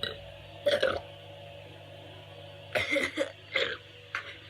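A person burping a few times, about three seconds in, as the gas from gulping down a Sprite comes up after being held in.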